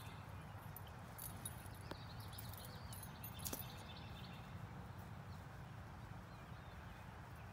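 Quiet outdoor background: a steady low rumble with faint high chirps and a couple of soft ticks, about two and three and a half seconds in.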